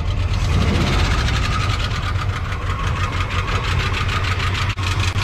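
Old pickup's carbureted V8 idling with a fast, even lifter tap from the valve train, tap, tap, tap: the owner puts it down to the top end not getting oil.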